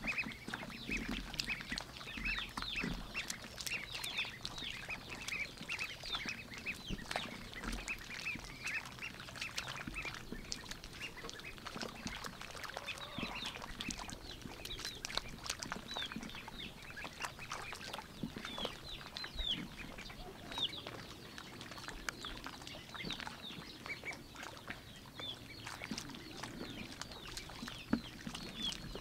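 Young white ducklings peeping over and over in short, high, falling calls while dabbling their bills through shallow muddy water, with many small wet clicks and smacks.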